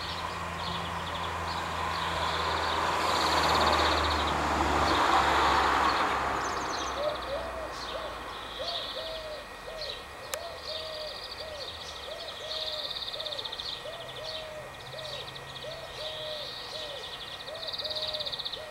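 Cicadas singing in pulsed, buzzing phrases, with a bird's low hooting call repeated about once or twice a second from about seven seconds in. A broad rushing noise with a low hum swells and fades during the first six seconds.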